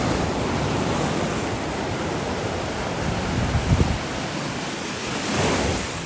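Sea waves breaking on the shore: a steady wash of surf that swells up again near the end. Wind buffets the microphone briefly a little past the middle.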